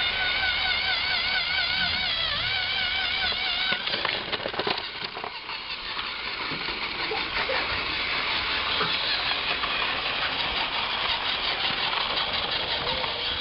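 A motorised Thomas toy train running along its track, a steady whirring rattle with many small clicks. For about the first four seconds a warbling tone sounds over it.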